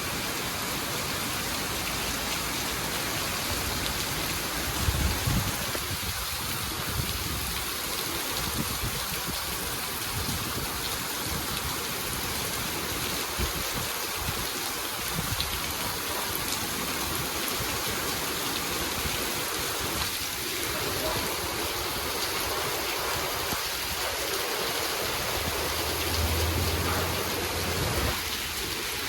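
Heavy rain falling steadily, a dense even hiss, with a couple of brief low rumbles about five seconds in and near the end.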